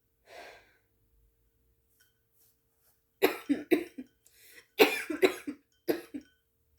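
A woman coughing: a faint breath a quarter second in, then a fit of sharp, loud coughs from about three seconds in, in two quick bursts of several coughs and one last cough. It is the lingering cough of someone just getting over an illness.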